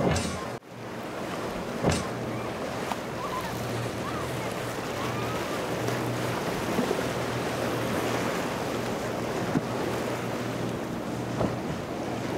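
Surf and rough water at an inlet, with wind gusting on the microphone and the low hum of boat engines coming and going underneath. There is a sharp knock about two seconds in.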